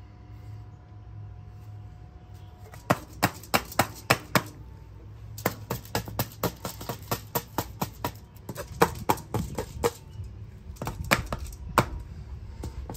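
Hands patting and pressing raw ground beef flat on aluminum foil: a run of irregular sharp slaps and taps that starts about three seconds in, with light foil crinkle.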